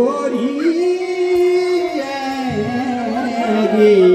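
A singer holding a long note, then moving on through the melody, in a Pahadi (Uttarakhandi) Holi folk song with steady musical accompaniment.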